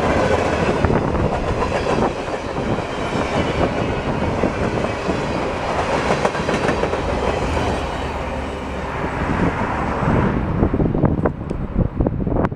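Empty freight cars of a pipe train rolling past, their wheels clacking over the rail joints with a steady rumble. The noise thins out about ten seconds in, leaving a few sharp clicks as the last cars go by.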